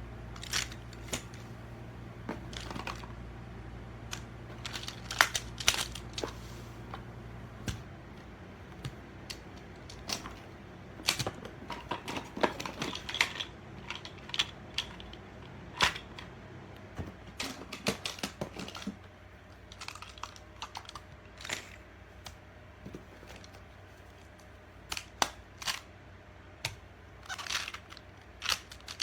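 Plastic magnetic building tiles clicking and clacking together at irregular intervals as they are handled, some clicks sharp and loud.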